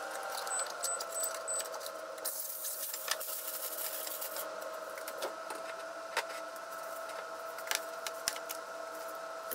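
Aluminium foil crinkling as it is laid and pressed over a frying pan, over a steady kitchen hum. Scattered sharp clicks and light rustles follow as plastic wrap on a bowl is handled near the end.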